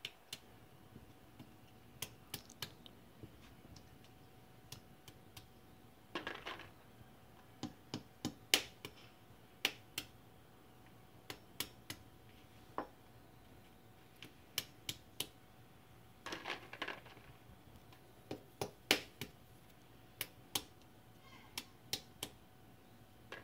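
Claw hammer tapping pecans in the shell to crack them open: faint, irregular sharp taps and cracks, some in quick pairs, with two longer rougher sounds about six and sixteen seconds in.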